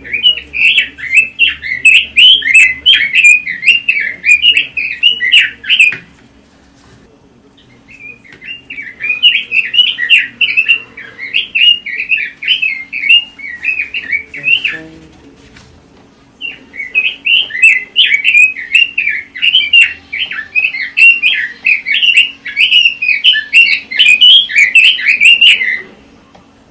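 Red-billed leiothrix (Pekin robin) singing: three long bouts of rapid, fluty warbling, with short pauses after about six seconds and again around fifteen seconds.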